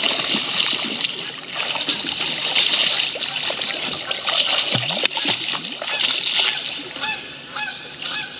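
A hooked blue catfish thrashing at the surface beside the boat, splashing water in irregular surges as it is led in to be landed.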